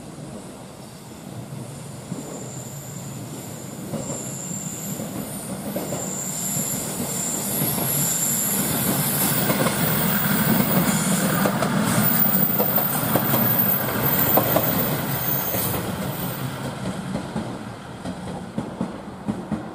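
Two-car KiHa 110 diesel railcar set passing slowly, its diesel engines rumbling louder as it comes close and fading as it moves off. Thin high wheel squeal runs through the middle of the pass, and a few sharp clacks of wheels over rail joints come near the end.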